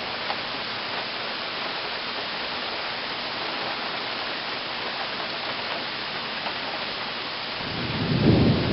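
Steady hiss of heavy rain falling. Near the end a low rumble of thunder swells up and becomes the loudest sound.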